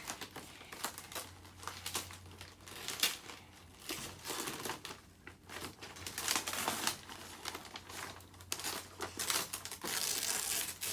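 Gift wrapping paper being torn open and crumpled by hand in uneven bursts of rustling, with the longest, loudest stretch near the end.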